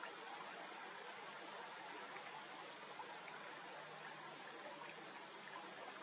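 Faint, steady rushing background noise with no distinct bird calls.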